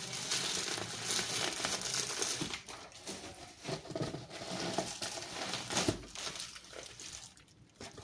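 Parcel packaging crinkling and rustling as it is handled and opened, with a sharp crack about six seconds in.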